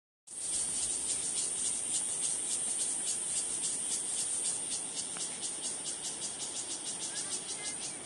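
Insects singing: a high-pitched buzz that pulses about five or six times a second over a steady high hiss, starting just after a brief drop-out.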